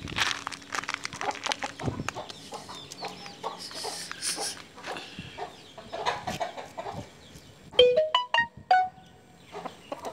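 Rooster clucking and calling in short bursts while being handled, with a quick run of clear pitched notes stepping upward about eight seconds in, the loudest part.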